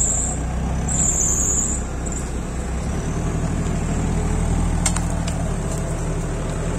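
Off-road 4x4 vehicle engine running steadily, with two brief high-pitched whines in the first two seconds.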